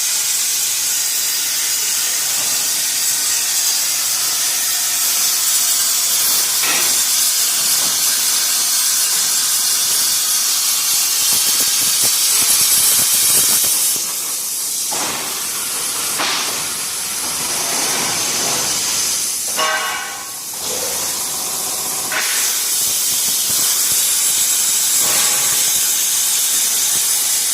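CNC plasma torch cutting steel plate: a loud, steady hiss of the arc, dipping briefly twice partway through.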